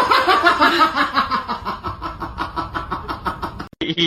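Laughter in rapid, even pulses, about five or six a second, that cuts off abruptly near the end.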